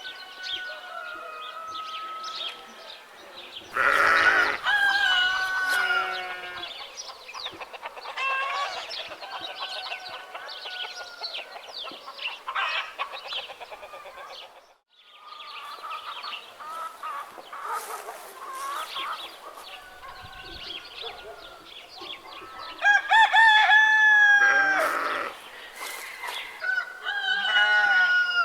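Farmyard chickens clucking and calling continuously, with two loud rooster crows, one a few seconds in and one near the end, and a brief break in the middle.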